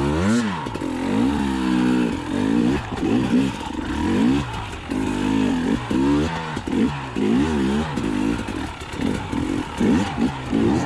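Single-cylinder two-stroke engine of a 2020 KTM 300 XC TPI dirt bike revving up and down in repeated quick throttle blips, about one a second.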